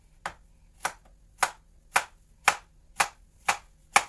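Kitchen knife slicing peeled bottle gourd (opo) on a wooden chopping board: the blade knocks against the board in even strokes about twice a second, eight in all, growing louder after the first few.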